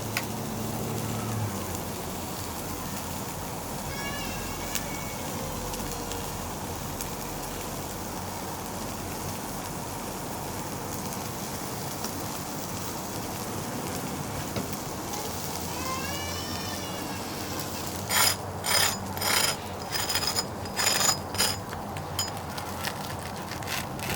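Steady sizzling hiss of steak slices grilling over charcoal. Short high chirping calls come in twice, and near the end there is a quick run of sharp metallic clinks.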